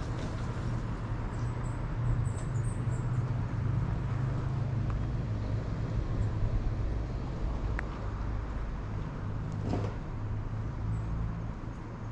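Steady low rumble of street traffic, with a few faint high chirps about two seconds in.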